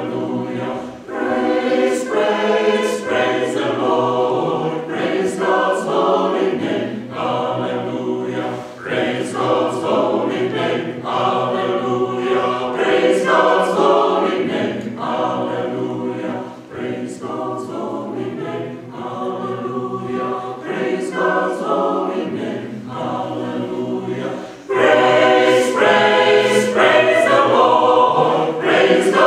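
Mixed choir of women's and men's voices singing a cappella in sustained chords, growing louder about 25 seconds in.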